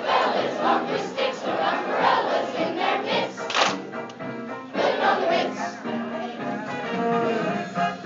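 Middle school chorus singing, many young voices together.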